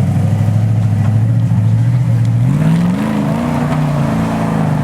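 Monster truck engine running at a steady low note, then revving up about halfway through, its pitch rising in a couple of steps.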